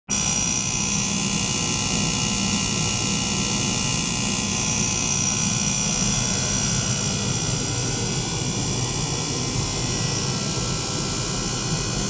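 Steady hum and high-pitched whine from a flowing-water ultrasonic rig: a small pump circulating water through tubing into a tank while an ultrasonic probe in the water is driven by a function generator. Several constant high tones sit over a low hum and a noisy wash.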